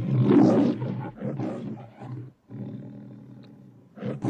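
Lion roar from the MGM studio logo (Leo the Lion): several roars in a row, the first the loudest, a longer one fading out in the second half, and another starting near the end.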